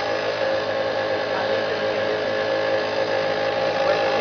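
Petrol pump fuel dispenser running while it pumps fuel, a steady electric-motor hum.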